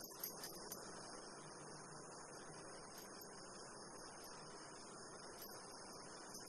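Near silence: a faint, steady high-pitched hiss, with a few soft ticks in the first second from cord being handled.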